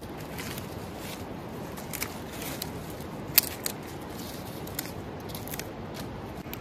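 Dry broom grass stalks being handled: irregular crisp crackles and clicks, the loudest a sharp snap about three and a half seconds in, over a steady background hiss.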